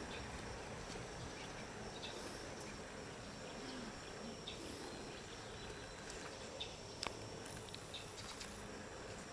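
Faint, steady high-pitched trilling of insects, with a few light clicks and one sharper tick about seven seconds in.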